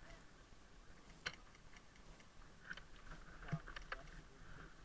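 Faint, scattered sharp clicks and pops of airsoft gunfire: one about a second in, then a small cluster of three or four a couple of seconds later.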